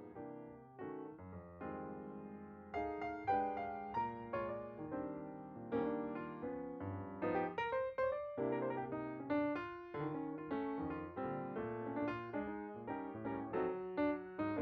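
Background piano music, a gentle melody of struck notes at a steady pace.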